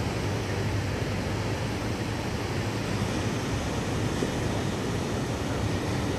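Steady, even rushing noise of surf and wind.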